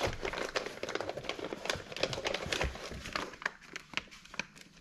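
Steel connecting rods being handled and set on a scale for weighing: irregular light clicks and knocks with rustling.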